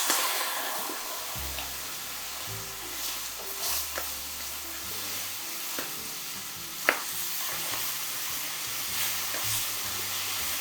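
Sizzling in a pan as milk is stirred into a hot butter, onion and flour roux, with a few sharp taps of the utensil against the pan.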